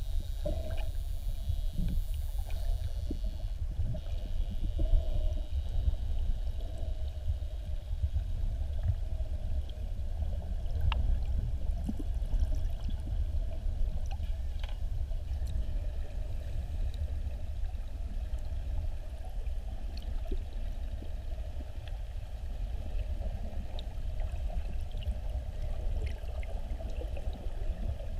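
Underwater sound around swimming bottlenose dolphins: a steady low rumble of water moving against the camera, with a faint steady hum and a few faint sharp clicks scattered through it.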